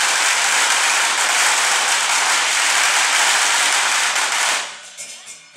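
A long string of firecrackers going off in a dense, continuous crackle of bangs, cutting off about four and a half seconds in.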